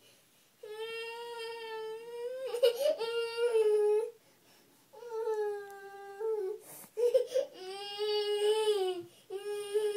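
Toddler crying in long, drawn-out wails at a fairly even pitch, about five in a row with short breaths between. It is frustrated fussing at being stuck standing in a corner, unable to get back down.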